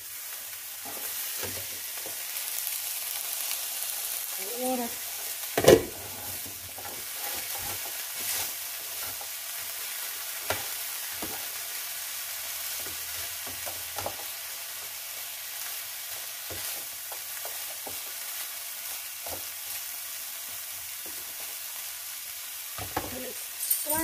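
Broccoli sizzling in a frying pan while a spatula stirs it, with small scrapes and taps against the pan. About six seconds in there is one loud, sharp knock.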